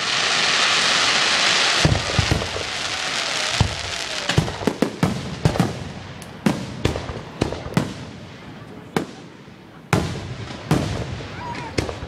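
Aerial fireworks going off. A loud dense hiss fills the first two seconds, then a quick run of sharp bangs and crackles follows, with a few louder, spaced bangs near the end.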